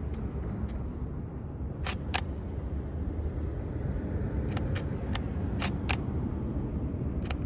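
Canon EOS 60D DSLR shutter firing about two seconds in, a quick double click of mirror and shutter. Several more sharp camera clicks follow in a loose run a couple of seconds later, over a steady low outdoor rumble.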